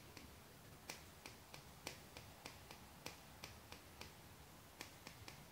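Scissors snipping through the ends of a gathered ponytail: a run of faint, quick clicks, about three a second.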